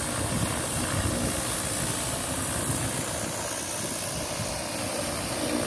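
High-pressure water jet hissing steadily as it blasts marine growth off a boat's hull, over the steady running of a motor.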